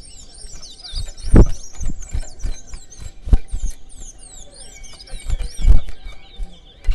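Chestnut-bellied seed finches (towa-towa) singing in a song race: rapid, high chirping and warbling twitters with no break, over several dull low thumps.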